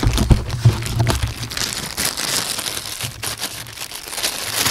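Clear plastic bag of small mounting clips crinkling and rustling as it is handled, with irregular crackles throughout.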